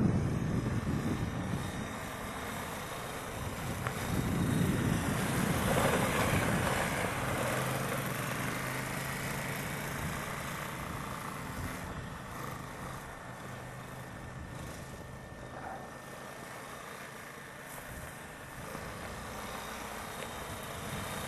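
Small ATV (quad) engines running on a dirt trail. The sound is loudest in the first two seconds, swells again a few seconds in, then settles into a quieter, steady low engine hum for the second half.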